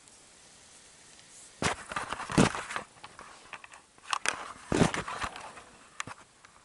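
Irregular crunching and knocking noises in a few short clusters, starting about a second and a half in and coming again around four to five seconds and at six seconds.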